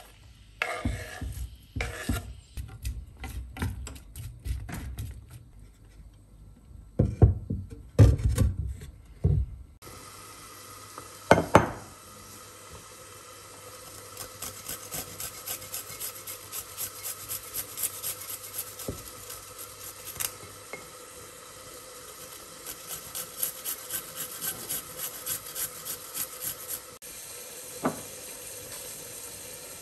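Kitchen knife chopping onion on a bamboo cutting board in quick strokes, with a few heavier thumps. Then steady rhythmic rasping strokes, about two to three a second, as garlic is grated.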